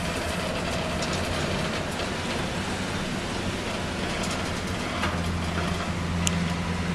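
A cruise ship's cabin in a storm: a steady rushing noise over a low hum, with scattered faint clicks and rattles. The hum grows stronger about five seconds in.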